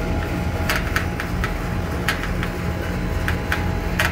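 Vacuum pump motor running with a steady low hum, while the valve knobs of a refrigeration manifold gauge set are handled by hand, giving a scatter of light, irregular clicks.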